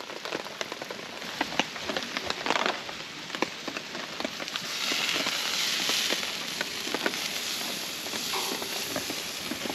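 Wood campfire crackling with many sharp pops, under a steady hiss. About halfway through, a sizzling hiss swells for a couple of seconds as the tomahawk steak on the hot grill grate is handled with tongs.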